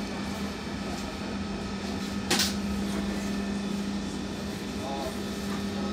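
Steady hum inside a BN coastal tram, with a short sharp hiss about two seconds in.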